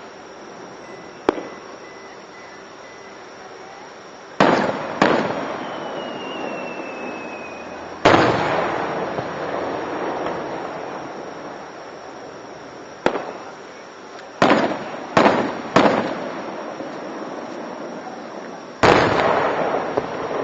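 Aerial firework shells bursting: about nine sharp bangs, some in quick succession, each followed by a long rolling echo. A thin falling whistle sounds for a couple of seconds after the third bang.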